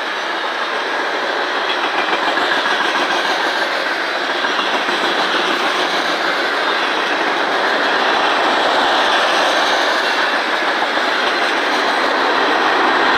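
Tank cars and gondolas of a manifest freight train rolling past: steady steel wheel-on-rail noise, getting slightly louder toward the end.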